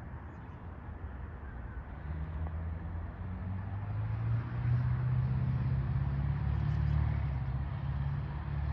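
A car engine running with road noise, growing louder and rising a little in pitch from about two seconds in as the vehicle speeds up.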